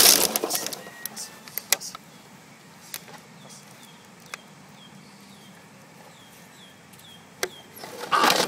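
Empty plastic water bottles crinkling and clattering as a puppy shifts about in a trough full of them: loud at first and again near the end, with a few single sharp crackles in the quieter stretch between.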